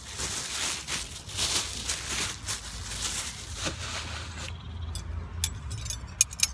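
Paper food wrapping rustling and crinkling as it is handled, for about four and a half seconds, followed by a few sharp clicks near the end.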